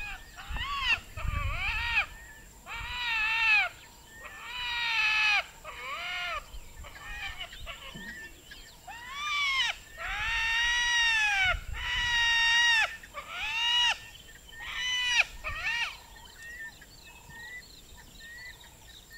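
Spotted hyena whining: about a dozen high, drawn-out whines in a run, each rising and then falling in pitch.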